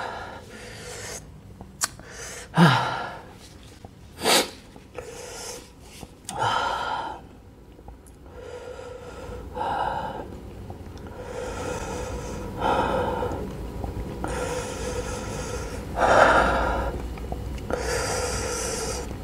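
A man's heavy gasping breaths through the mouth, a sharp one every two or three seconds, as he suffers the burn of the extremely hot Paqui one chip challenge chips.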